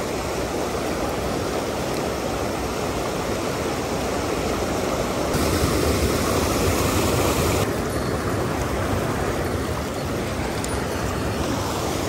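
A mountain stream rushing over rock ledges and small cascades: a steady roar of white water that grows louder for a couple of seconds about five seconds in.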